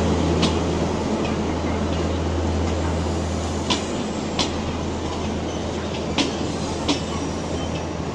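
Double-decker passenger coaches rolling slowly past, their wheels clicking over rail joints in pairs, over a steady low drone that slowly fades.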